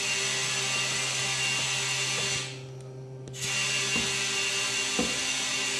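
Compressed air hissing through a Milton tyre inflator into a tyre being filled to seat its bead. The air is cut off for about a second partway through and then resumes, over a steady hum.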